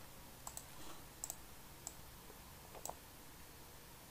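A handful of faint computer mouse clicks, a couple of them in quick pairs, over quiet room tone.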